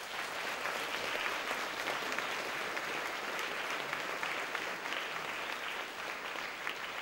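Audience applauding: a steady patter of many hands clapping that eases off a little near the end.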